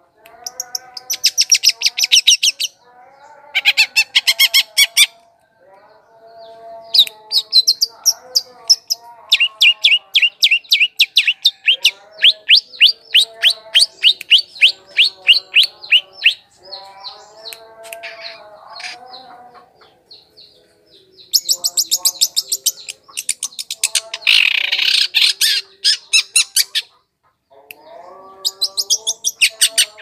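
Long-tailed shrike (cendet) song on a lure recording: fast rattling trills of high, dry notes, about ten a second, come in runs of a few seconds, with lower warbled notes in between and brief pauses.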